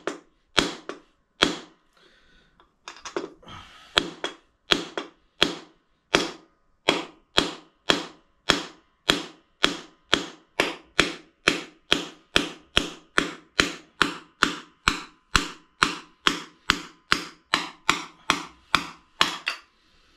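Wooden mallet hammering a metal drift to drive an old bearing out of a gearbox casing: a steady run of sharp knocks about two a second, each with a short metallic ring, with a brief pause about two seconds in. The bearing is moving under the blows.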